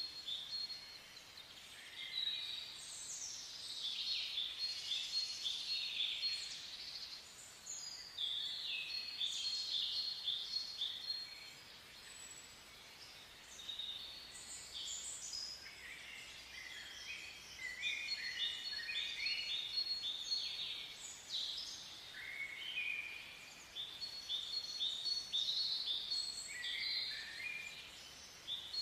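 Small songbirds chirping and twittering in quick runs of short, high notes, phrase after phrase, over a faint steady hiss.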